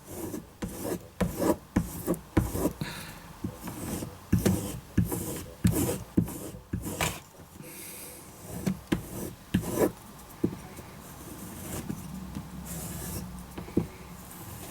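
Carving knife being stropped to hone its edge: a run of quick, irregular rubbing strokes of the blade along the strop.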